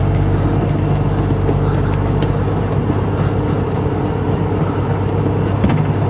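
International tractor engine running steadily while hauling a full load of firewood, with a light knock near the end.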